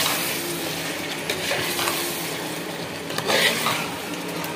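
Chicken pieces sautéing in hot oil in a metal pot, sizzling as they are stirred. The stirring scrapes against the pot, with louder scrapes near the start, about a second and a half in, and again just past three seconds.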